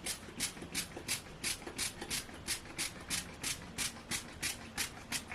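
Brush or comb drawn quickly through wig hair: about sixteen short, even rasping strokes, roughly three a second.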